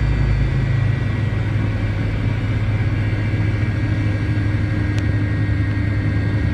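MD-88 airliner's rear-mounted Pratt & Whitney JT8D turbofan engines running, heard inside the cabin as a steady, loud rumble and rush with a faint steady whine over it.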